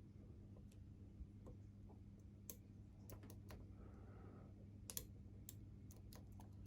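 Faint, irregular clicks of a lock pick and tension wrench working the pins of a four-pin Master Lock Magnum padlock, over a steady low electrical hum.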